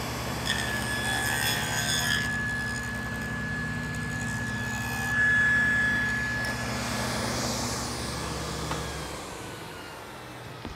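Table saw with a 1/4-inch dado stack cutting a groove along the edge of a board, on the second pass that centres the groove: the motor hums steadily with a high whine while the blades cut. About nine seconds in the hum drops away as the saw is switched off and coasts down.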